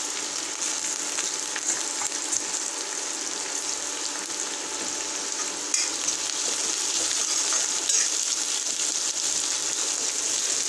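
Onions, garlic and ginger strips sizzling steadily in hot oil in a metal kadai, with a few short clicks of a steel spoon against the pan as they are stirred.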